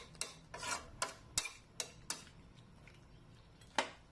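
Metal spatula clinking and scraping against a wok, about seven irregular knocks, while stirring chicken feet in the pan.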